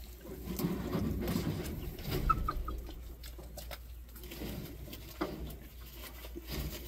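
A small flock of chickens, hens and a rooster, making low clucking and murmuring calls, with a few short, higher chirps a little over two seconds in.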